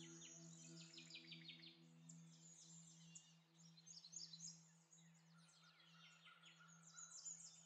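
Faint ambient background music: a steady low drone with bird-like chirps over it.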